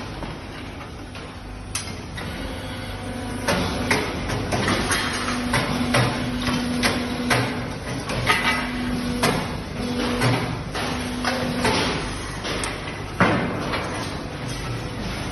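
Casting-workshop noise: irregular metal clanks and knocks from tools, tongs and moulds over a steady machine hum that cuts in and out.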